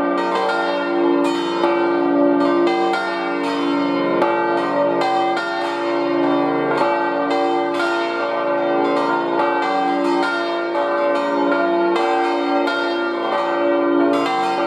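Full peal of five swinging church bells cast by Rüetschi of Aarau, tuned d', f', g', b-flat' and c''. They strike over one another in an irregular, unbroken ringing as they call to a service.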